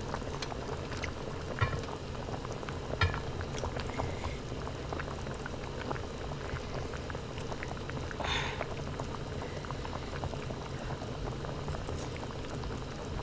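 Broth bubbling steadily in a hot pot on the table, with scattered light clicks of chopsticks against the pot and bowl. A brief hiss rises about eight seconds in.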